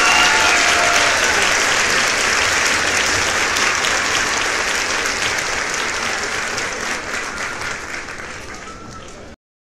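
Live audience applauding, the clapping slowly dying away, then cut off abruptly about nine seconds in.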